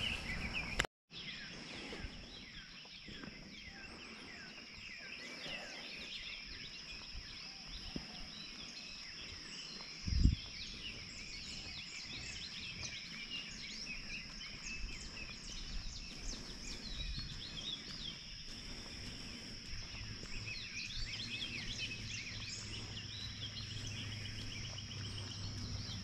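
Many small birds chirping and calling in roadside trees over a steady high-pitched insect-like tone, with one brief low thump about ten seconds in and a faint low hum coming in during the second half.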